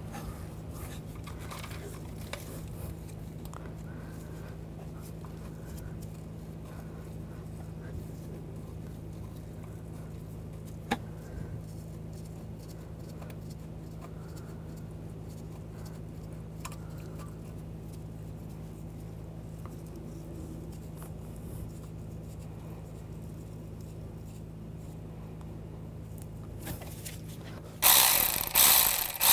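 A steady low hum with a few faint clicks while bolts are threaded in by hand. Near the end a cordless ratchet runs in short loud bursts, running down the bolts of an oil cooler and filter housing.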